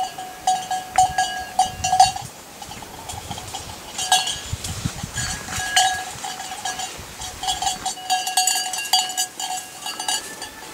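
A bell hung on a goat's neck, clanking in irregular bursts as the animal moves and browses in the brush, with short lulls between.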